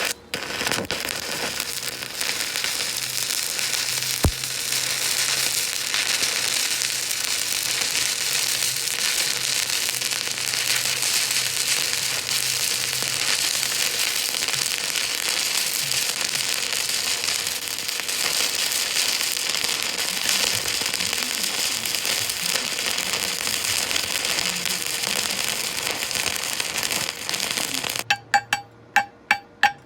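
Stick (arc) welding on steel angle iron: the arc crackles and sizzles steadily as a bead is run. Near the end the arc stops, and a quick series of sharp metallic taps follows, about three a second.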